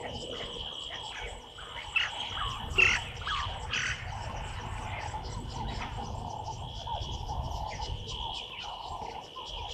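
Insects trilling steadily with a fast, pulsing chirr, and a few loud, short bird calls between about two and four seconds in.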